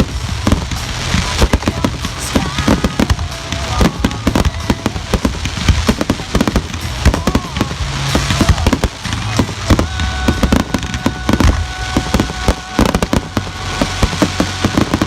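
Dense barrage of firework explosions, many sharp bangs in quick succession, with music playing underneath.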